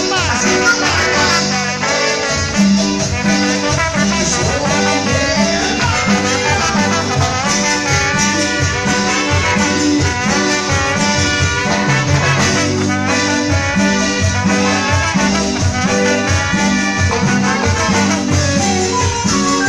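Live Latin dance band playing, with a brass section carrying the melody over keyboard, bass and a steady beat.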